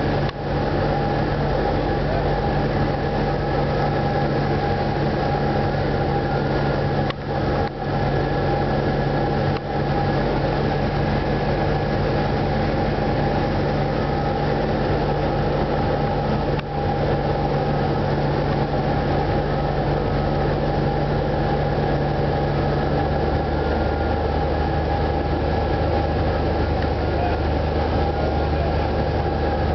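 Light aircraft's engine and propeller droning steadily, heard inside the cockpit during a landing approach. The low pitch of the drone shifts downward near the end as the plane reaches the runway.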